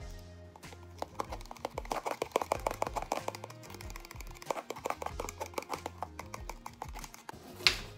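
Background music with a steady bass line, over which a utensil clicks rapidly against a small plastic container as a sauce is stirred, with one louder clack near the end.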